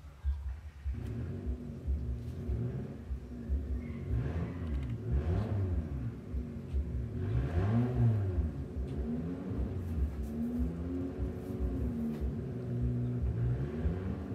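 An engine running off-screen, its pitch rising and falling again and again as it is revved, starting about a second in.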